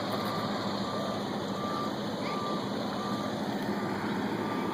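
Reversing alarm on a road-work vehicle beeping steadily, about three beeps every two seconds, over the steady hum of a running diesel engine.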